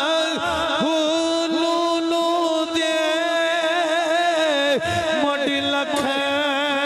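A man's voice chanting a devotional kalam into a microphone in long, held, wavering notes.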